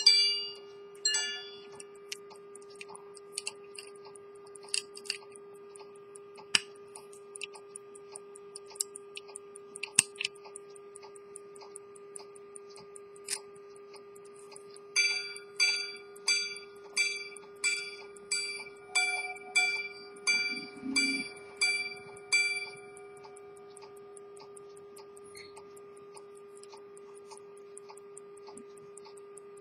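Swiss quarter-repeater pocket watch movement ticking, with its repeater striking: a couple of ringing strikes at the start, then, about halfway through, a run of about fifteen evenly spaced strikes lasting some seven seconds. A few sharper clicks stand out from the ticking.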